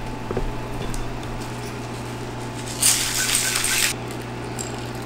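Ice rattling in a stainless steel cocktail shaker as it is shaken for about a second near the middle, after a few light clinks of the shaker being handled.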